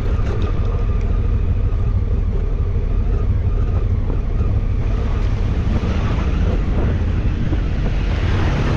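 Enduro motorcycle running on the move, its engine under heavy wind rumble on the microphone, steady throughout.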